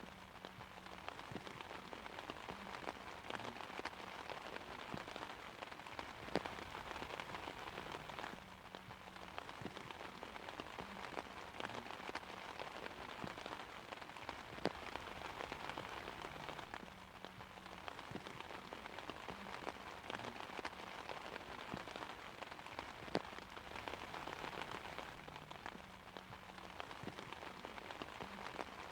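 Steady rain falling on an umbrella, with no thunder. A few louder single drops strike it at intervals.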